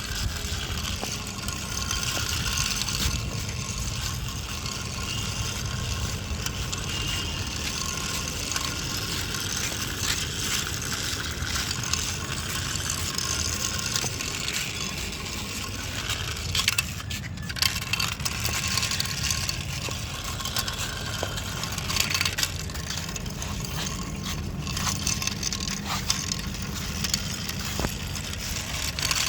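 Continuous scraping and rattling with scattered small clicks over a steady low rumble.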